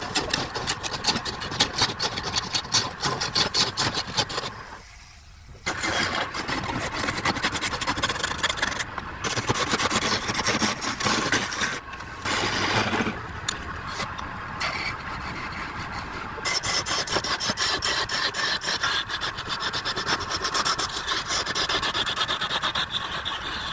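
Wood lathe running while a turning tool scrapes and cuts the spinning wood, a dense rasping sound in spells broken by short pauses, the longest about five seconds in.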